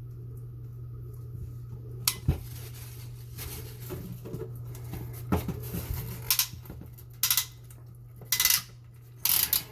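Metal clicks and clinks from a hand PEX crimping tool and fitting being handled and worked: about half a dozen sharp clicks spread over several seconds, with a short cluster of clicks near the end.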